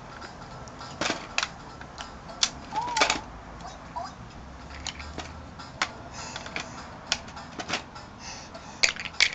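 Irregular sharp clicks and clacks of hard plastic toy coins being handled, knocked together and pushed into the slot of a plastic toy piggy bank.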